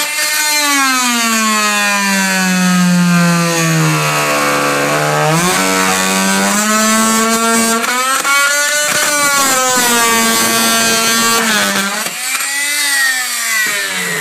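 Fein MultiMaster oscillating multi-tool buzzing as its blade cuts through a wooden carpet tack strip by the skirting board. The pitch drops as the blade bogs down in the cut, from about one to five seconds in, then climbs back, dips again briefly near the end and stops.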